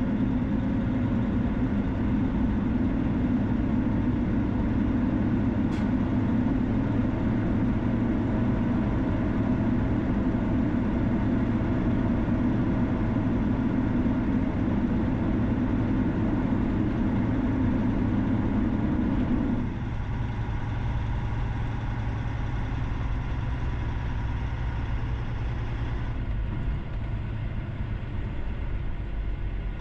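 Steady road and engine noise of a vehicle driving on a highway. The heavy low rumble drops away abruptly about twenty seconds in, leaving quieter road noise.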